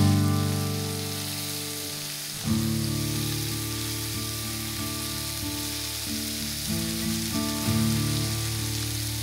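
Lamb pieces sizzling in butter in a cast-iron skillet, a steady frying hiss. Background music of held notes plays under it, changing chord about two and a half seconds in.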